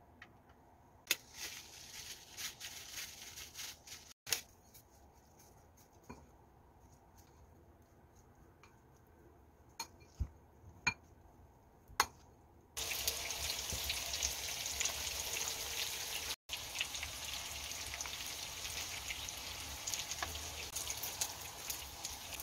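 A plastic rice paddle mixes seasoned rice in a ceramic bowl: light scraping and scattered clicks, with a few sharp taps against the bowl. About halfway, a steady frying sizzle with fine crackles starts suddenly and becomes the loudest sound.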